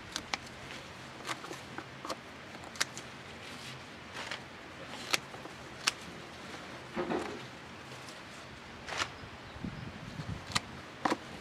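Irregular sharp knocks and clicks with a brief rustle about seven seconds in: potatoes and damp compost being handled in a plastic growing tub during a potato harvest.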